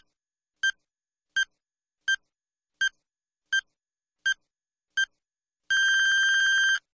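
Electronic countdown-timer beeps: eight short, identical high-pitched beeps about 0.7 seconds apart, then one long beep lasting about a second near the end.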